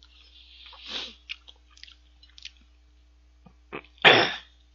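Person eating curry and rice with a metal spoon: soft mouth and breath noise, then scattered small clicks as he chews. About four seconds in comes one short, loud rasping noise as the spoon goes back into the plate.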